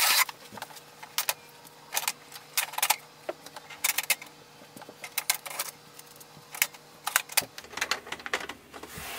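Packing tape and inserts being pulled off a new inkjet printer's plastic casing by hand: a run of short, irregular rips, rustles and plastic clicks, loudest right at the start.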